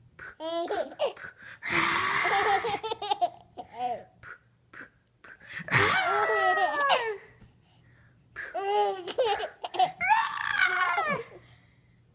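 A baby laughing: several bouts of high-pitched giggles and belly laughs with short quiet pauses between them.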